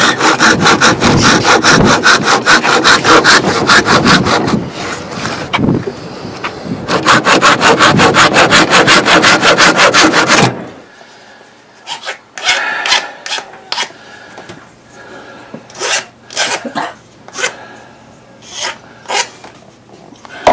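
A handsaw cutting a small piece of thin wood in quick, rapid back-and-forth strokes, pausing briefly partway and stopping about halfway through. After that come scattered short knocks and rustles of small pieces being handled.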